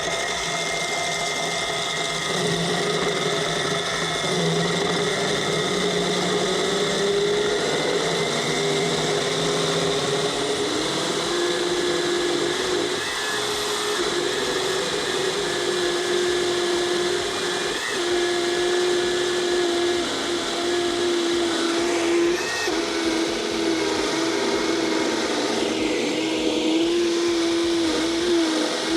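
A 2400 W stand-mounted core drill running on its low speed setting, its 100 mm core bit boring dry through concrete, with a vacuum drawing off the dust. The motor makes a steady whine that drops a little in pitch and strengthens as the bit takes up the load, about a third of the way in.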